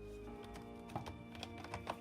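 Soft background music with a few light clicks and taps of laptop parts being handled, about a second in and again near the end.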